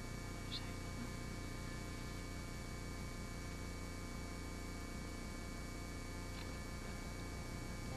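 Steady electrical mains hum with a layer of hiss. A faint short high sound comes about half a second in and another about six and a half seconds in.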